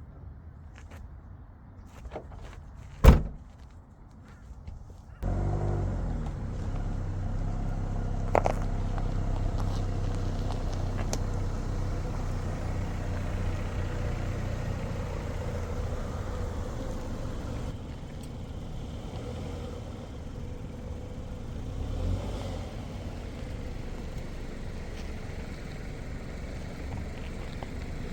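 A single sharp thump about three seconds in, then a Land Rover Defender 110's engine starts about five seconds in and settles into a steady idle, dropping a little in level partway through.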